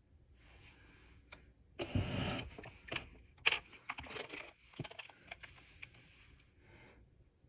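Small objects being handled and set down on a table: a rustle about two seconds in, then a run of light clicks and clatters, with paper rustling as a booklet is picked up.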